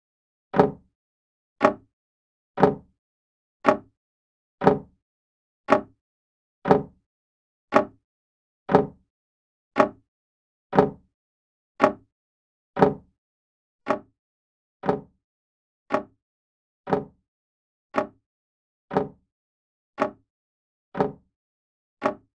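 Grandfather clock ticking: a sharp, evenly spaced tick about once a second, with silence between ticks.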